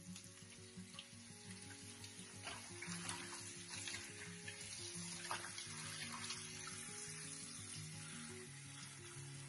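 Tap water pouring into a plastic basin of escarole leaves, with irregular splashing and swishing as hands rub the leaves under the stream, over soft background music.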